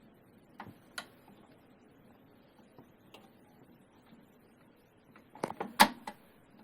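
Small clicks and knocks from fitting a thermal printhead into an Intermec PM4i label printer as its hooks are slid onto the toggle bar. There are two single clicks about a second in, then a quick cluster of louder knocks near the end.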